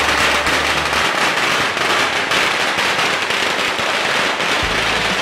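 A long string of firecrackers going off in a continuous rapid crackle of bangs.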